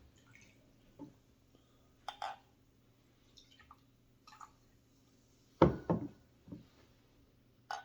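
Soda poured into small sample cups in short splashes and drips, with knocks as a bottle and cups are set down on a table; the loudest is a thump a little past halfway. A faint steady low hum runs underneath.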